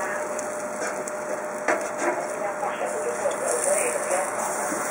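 Steady sizzling and burner hiss from a gas barbecue grill plate as steak cooks, with a single metal knock of knife or tongs against the plate a little under two seconds in.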